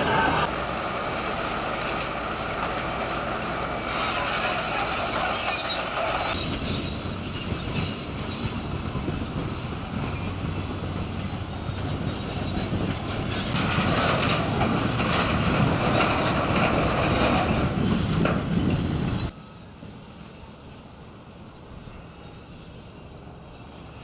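Tipper dump trucks unloading demolition rubble: diesel engines running while broken concrete scrapes and slides out of the raised steel beds, with high metallic squeals. Near the end it gives way abruptly to a much quieter, distant hum.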